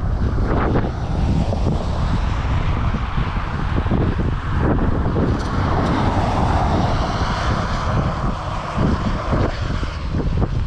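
Wind buffeting the microphone: a loud, steady rumble with gusty surges.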